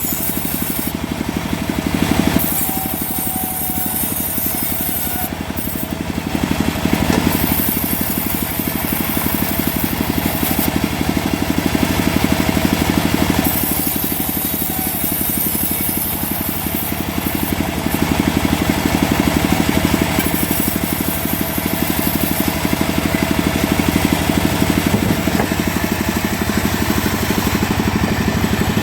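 Engine-driven homemade sawmill running steadily while its saw blade cuts through a mahogany log. A high hissing rasp from the cut comes and goes every few seconds over the steady drone of the machine.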